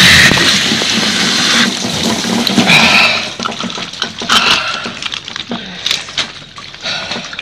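Mains-pressure water spraying hard from an open PVC pipe end, a loud hiss that dies away over the first three seconds as a new valve fitting is pushed onto the pipe and the flow is cut off. After that, scattered drips and splashes.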